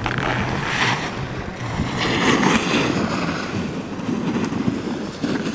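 Alpine snowboard edge carving on hard-packed snow: two loud scraping swishes, about a second in and again from two to three seconds in, with wind buffeting the microphone.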